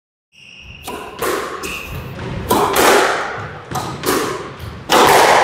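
A squash ball being struck and hitting the walls of the court: a string of sharp, echoing hits, several in close pairs, the loudest near the end. Short high squeaks come near the start.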